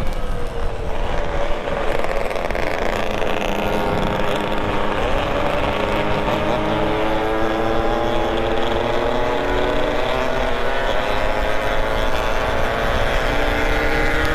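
Motorcycle engine running while ridden, its pitch slowly rising and falling with the throttle, over a heavy rumble of wind and road noise.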